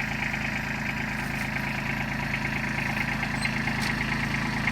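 Kubota compact tractor's diesel engine running steadily at a constant speed while it raises a heavy pole.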